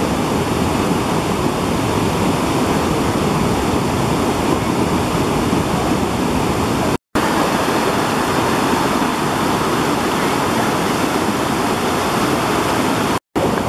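Muddy floodwater of a swollen mountain stream rushing over boulders and gravel: a loud, steady torrent of water. It cuts out briefly twice, about seven seconds in and near the end.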